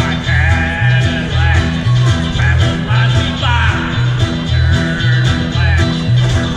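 Ukulele band playing a rock-and-roll song live through a PA, with strummed ukuleles, a steady pulsing bass line and sung vocals.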